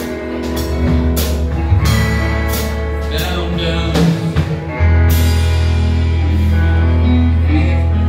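Live amplified rock band playing: electric guitars over a drum kit, with cymbal strikes about twice a second. About five seconds in, a heavy low note comes in and is held.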